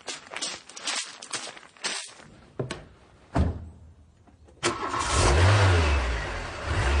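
Footsteps for about three seconds, then a single thump, then a lorry engine starts a little past halfway and runs, its pitch rising and falling once as it revs.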